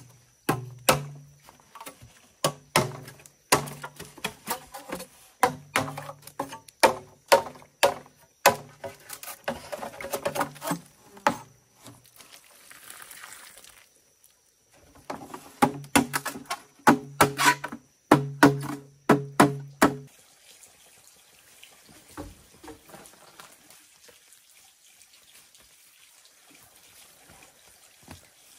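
Repeated sharp chopping strikes on bamboo, each with a short hollow ring, in two runs with a pause between. The strikes stop after about 20 seconds, leaving a faint sound of running water.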